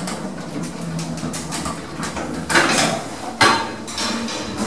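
Automatic doors of a modernised 1960s Marryat & Scott lift sliding shut: a brief rush of sliding noise about two and a half seconds in, then a sharp clunk a second later as the doors meet and close.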